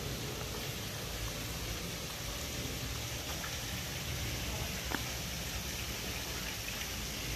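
Steady rain falling on wet paving and pool water, an even hiss, with one small click about five seconds in.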